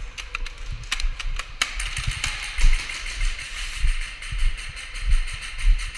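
Walking footsteps thudding on a concrete floor, picked up by a body-worn camera, about one and a half steps a second. A few sharp clicks come in the first two seconds over a steady hiss.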